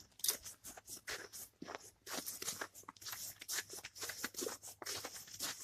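Footsteps with rustling while walking: a rapid, irregular crunching and crackling.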